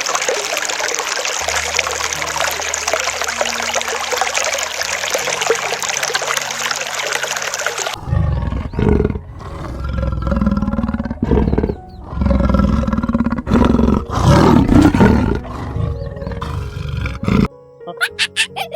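A steady rushing noise with low background music for about the first half, then a large animal roaring in a series of loud, low bursts until near the end, when short musical notes take over.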